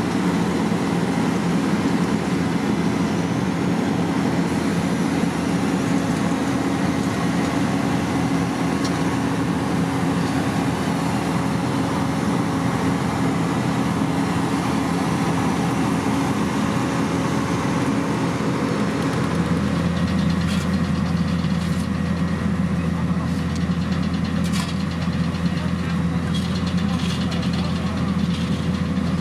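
Heavy construction machine's engine running steadily. About two-thirds of the way in, a deeper hum joins it and scattered sharp clicks and taps begin.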